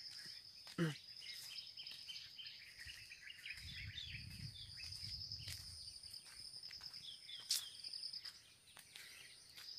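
Faint rural ambience: a steady high-pitched insect drone with many scattered bird chirps. A low rumble comes in about three and a half seconds in and fades out about two seconds later.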